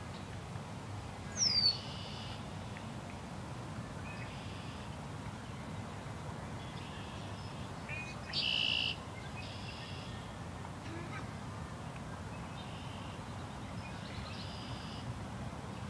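Birds calling over a steady low rush of wind. A sharp falling whistle comes a little over a second in, then short high calls every second or two, the loudest about eight seconds in.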